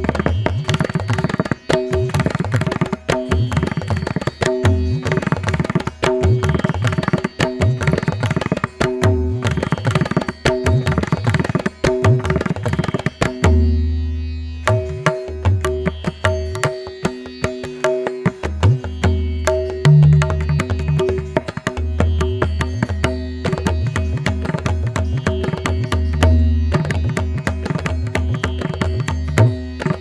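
Background instrumental music: a fast drum rhythm over a steady drone, breaking off briefly about halfway through.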